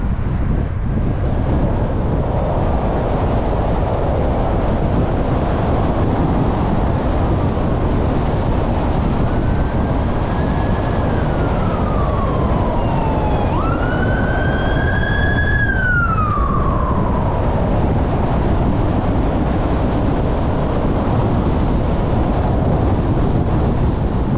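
An emergency vehicle's siren wailing over steady road and wind noise from a moving car. The siren rises and falls slowly in pitch, jumps up sharply about 14 seconds in, holds, then falls away.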